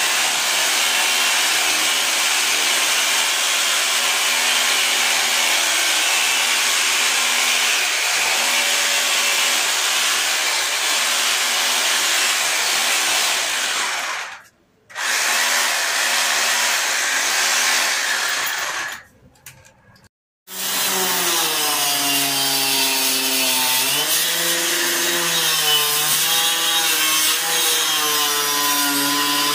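A corded power drill runs steadily, boring into a wooden door frame, and stops briefly twice. An electric hand planer then shaves the edge of a wooden door leaf that is too wide, and its motor whine dips and rises as the blades bite into the wood.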